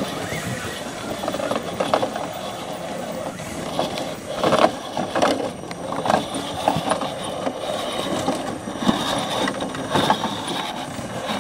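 Scale RC rock-crawler truck grinding its way up a rocky trail: electric motor and gearbox whirring on and off, with clicks and knocks from tyres and chassis on the rocks.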